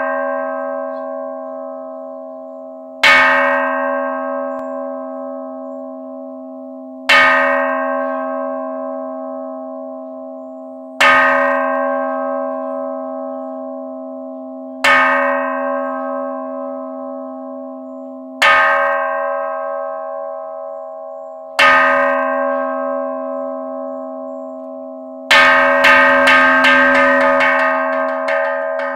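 Temple calling bell (kansho) struck seven times, about four seconds apart, each stroke ringing over a steady deep hum and slowly dying away. Near the end, a rapid roll of strokes begins, signalling that the service is about to start.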